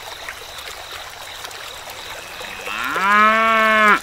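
A cow mooing once: a single call that rises in pitch, holds steady, and stops abruptly.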